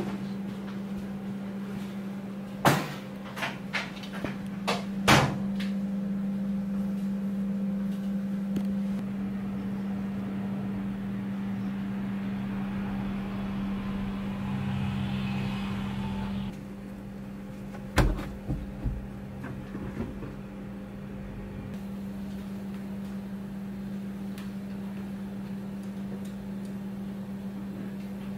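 Indoor room tone: a steady low electrical hum, with a handful of sharp clicks and knocks about three to five seconds in and again around eighteen seconds in.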